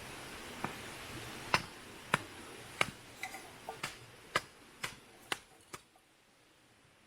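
A series of about a dozen sharp taps or knocks, roughly one every half second, stopping about six seconds in.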